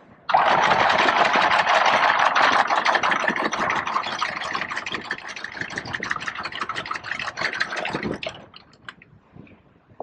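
Anchor chain running out through the bow windlass in a loud, continuous rattle that starts suddenly, slowly eases off and stops about eight seconds in.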